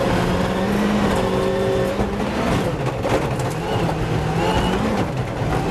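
Volkswagen rally car's engine heard from inside the cabin at speed on gravel. The engine note drops briefly about halfway through, then rises again as the car accelerates, over a steady noise of tyres on loose gravel with a few sharp ticks of stones.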